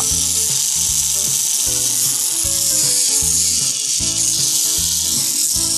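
The small electric motor of a Motor Tomica Skyline GT-R toy car running steadily with a high, hissy whir, over background music.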